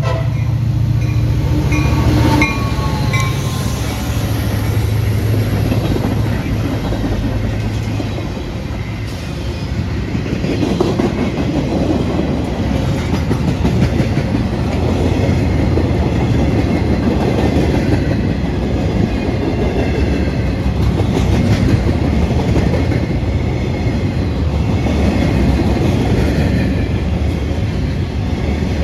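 A diesel train horn finishes sounding about two seconds in while two EMD SD40-2 locomotives pass with a deep diesel engine drone. From about eight seconds in, the train's cars roll by, their wheels rumbling and clacking on the rails.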